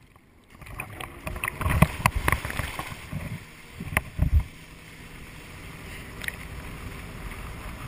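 Water rushing and splashing around a wakeboarder as the tow boat pulls him up out of the water in a deep-water start, with several loud thuds and splashes in the first half. It settles into a steady, slowly building rush of water and wind once he is up and riding.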